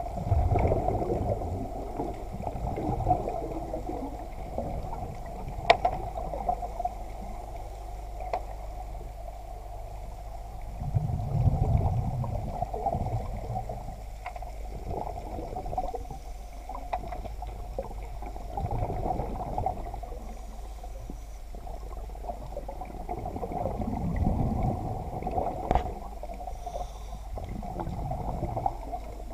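Muffled underwater water movement with slow swelling surges over a steady low rumble and hum, broken by a few sharp clicks.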